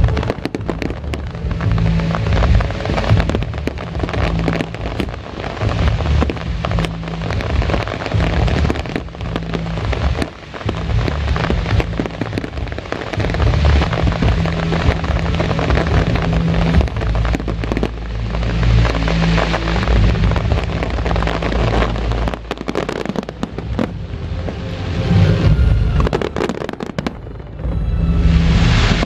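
Aerial fireworks shells bursting in rapid succession, many sharp bangs close together, with music playing underneath.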